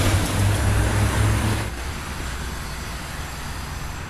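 Road traffic on a wet street: a low rumble with a broad hiss that drops away suddenly under two seconds in, leaving a quieter, even hiss.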